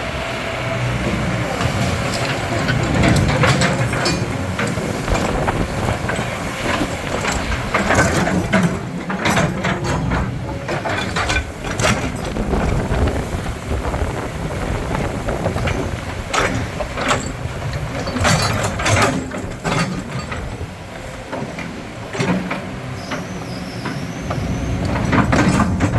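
Kobelco SK200 hydraulic excavator working: its diesel engine runs with a rumble that rises and falls in load, broken by many short, sharp knocks.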